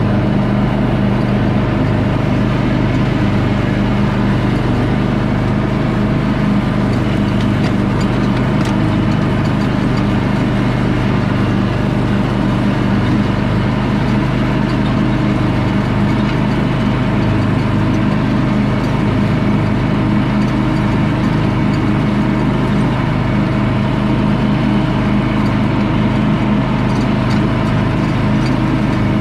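Engine running steadily at a constant speed, with no change in pitch or loudness.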